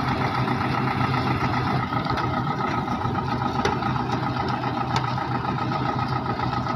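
Tractor-driven groundnut thresher running steadily, the tractor's diesel engine working under constant load over the thresher's steady mechanical drone, with a few faint ticks.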